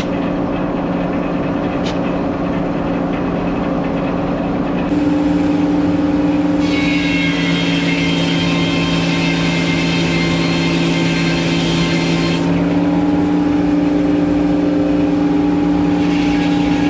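Sawmill engine running steadily. About five seconds in it picks up under load, and for about six seconds a higher hissing whine is added as the blade cuts through the log.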